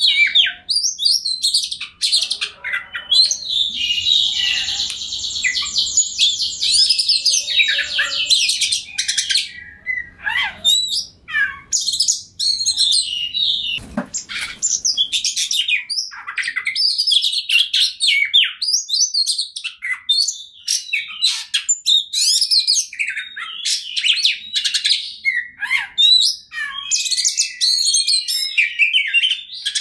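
Oriental magpie-robin singing a long, varied song of rapid high-pitched trills and whistles, with short breaks between phrases near the middle. A brief thump about halfway through.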